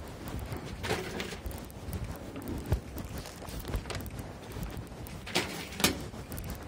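Footsteps walking on a hard surface, an uneven series of low thumps, with two brief rustles about a second in and again near the end.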